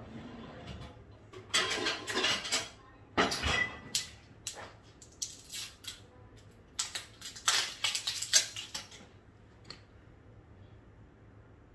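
Kitchen items being handled on a countertop: several short bursts of rattling and knocking with a few sharp clicks, as containers and utensils are picked up and set down.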